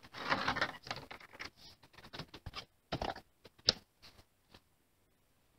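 Handling noise as a vinyl toy figure and its clear plastic packaging are moved about. There is a burst of rustling in the first second, then scattered light taps and clicks, the sharpest about three and a half seconds in.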